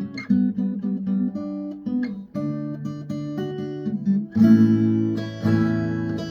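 Instrumental intro of a song on guitar: separately picked notes, then fuller strummed chords from about four seconds in.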